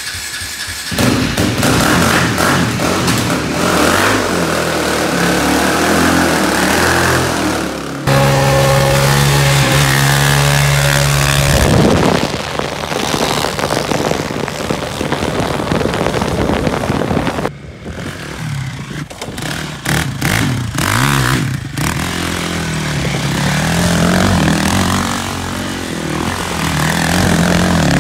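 Sport quad ATV engine revving hard and running at high revs through a run of short riding clips, with sudden cuts between them. A steady high-rev drone holds for a few seconds in the middle.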